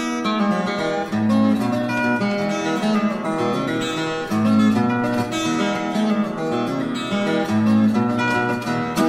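Acoustic guitar instrumental music: quick picked and strummed notes over a bass line that changes about every second.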